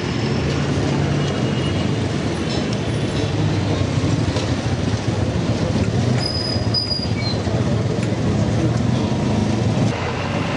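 Street traffic: vehicle engines running amid continuous road noise, with a brief high squeal a little past halfway.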